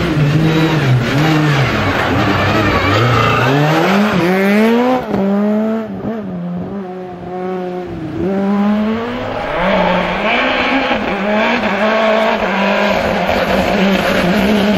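Rally car engines revving hard as the cars pass, pitch climbing through each gear and dropping at every shift, with a quieter, steadier stretch in the middle before the revving picks up again.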